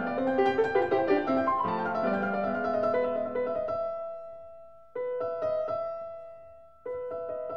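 Background piano music: a passage of quick notes that gives way to held chords, one struck about five seconds in and another near the end, each fading away.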